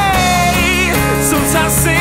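Indie rock music from a band with guitar and bass: a held note ends about half a second in, followed by a wavering high melody line over steady low notes.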